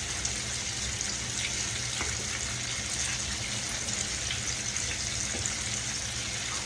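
Catfish deep-frying in hot grease: a steady sizzling hiss with a few faint pops.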